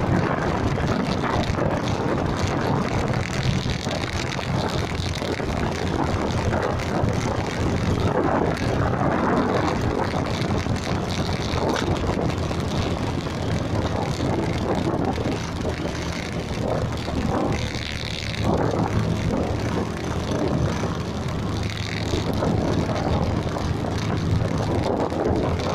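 Steady engine drone and road noise of a vehicle on the move, heard from on board as it rides through traffic.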